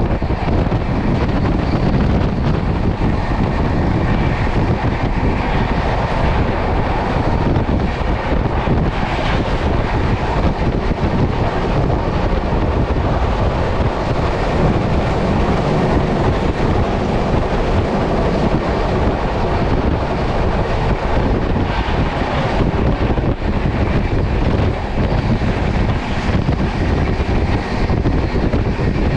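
Passenger train running at speed, a steady rumble and rush of wheels on the track, with wind buffeting the microphone.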